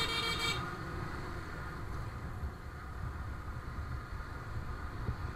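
Motorcycle engine running and wind rumbling on an action camera's microphone while riding on a road. A pitched tone stops about half a second in.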